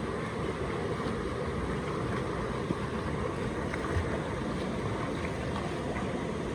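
Steady rush of flowing water from a river or waterfall, an even noise without breaks.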